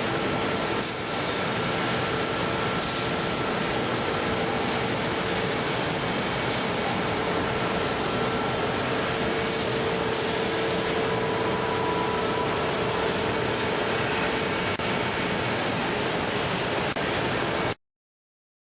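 Busellato Jet Optima CNC machining center running a machining cycle on cabinet door parts: a steady mechanical noise with a held whine, cutting off suddenly near the end.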